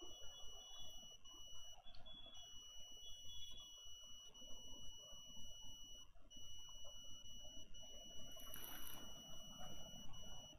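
Quiet room and recording noise with a steady high-pitched electrical whine, broken by brief dropouts, and a short hiss-like burst near the end.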